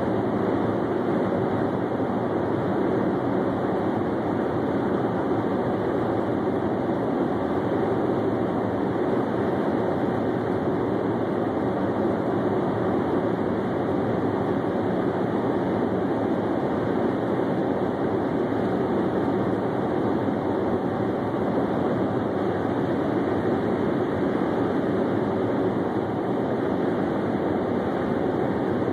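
Steady road noise inside a car cabin while driving on a highway: tyres on the pavement and engine hum, unchanging throughout.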